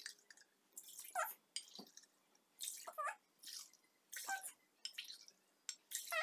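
Milk being poured from a jug into a glass and tipped into a cooking pot, in about four short splashing pours a second and a half apart, as glassfuls of milk are measured out.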